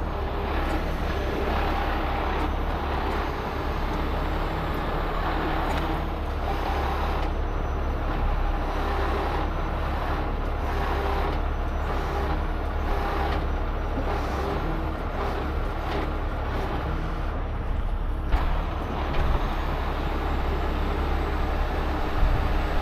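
The heavy rotator tow truck's diesel engine runs steadily, powering the hydraulic winches that are pulling on a very heavy, stuck load.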